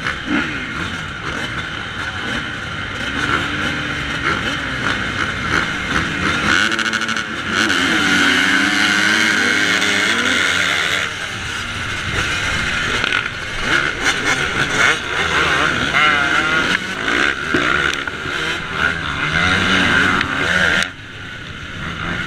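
Yamaha YZ125 two-stroke motocross engine revving hard up and down through the gears, heard from the rider's own bike, with a pack of other dirt bike engines around it. The revving is loudest and busiest from about six to eleven seconds in, while the bikes run bunched together, and drops off briefly near the end.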